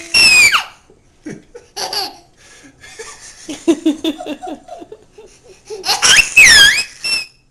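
A baby laughing in bursts: a run of quick short chuckles in the middle, and a loud, high squealing peal near the end.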